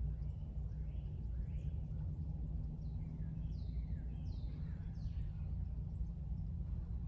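Outdoor ambience: a steady low rumble under a bird calling repeatedly, short chirps, several sweeping downward in pitch, that die away about five seconds in.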